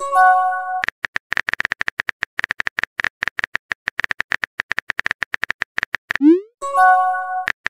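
Texting-app sound effects: a short chime of several held tones as a message is sent, then rapid keyboard tap clicks for about five seconds as the next message is typed, then a rising swoop and the same chime as it is sent.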